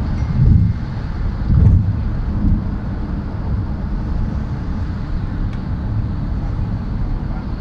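Road and engine noise of a moving vehicle heard from inside the cabin: a steady low rumble that swells louder twice in the first couple of seconds.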